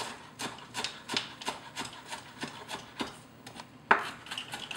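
Kitchen knife chopping fresh cilantro on a wooden cutting board: a quick run of light taps, about three a second, with one sharper knock near the end.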